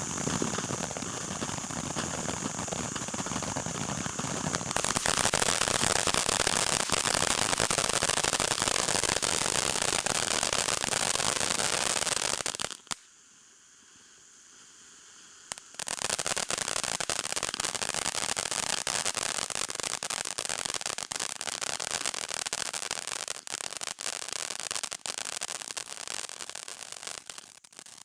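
Cutting Edge 'Night Party' 200-gram fountain firework spraying with a steady hiss that grows louder about five seconds in. It drops away for about three seconds around the middle, then starts again with a hiss full of sharp crackles.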